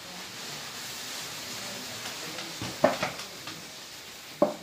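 Dry tea leaves pouring from a woven plastic sack and being raked over by hand, a steady hissing rustle. Two sharp clicks stand out, one about three seconds in and one near the end.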